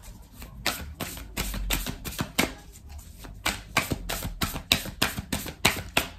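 Oracle card deck being shuffled by hand: a run of quick, uneven clicks and snaps as the cards strike one another, about three or four a second.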